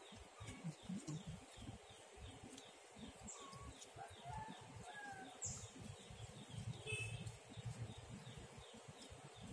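Birds chirping faintly in the surrounding trees: a steady run of short falling chirps, about four a second, with a few clearer whistled notes about halfway through, over a low uneven rumble.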